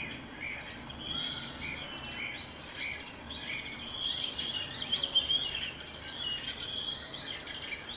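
A chorus of several forest birds chirping and singing at once, short overlapping high calls and trills following each other without a break.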